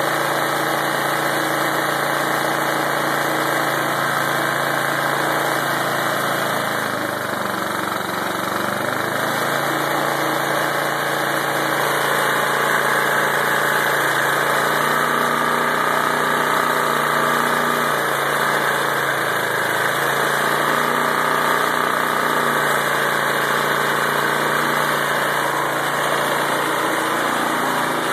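Briggs & Stratton 650 Series single-cylinder lawnmower engine running steadily on propane fed through a ball valve into its carburetor. Its pitch sags briefly about a quarter of the way in, then recovers.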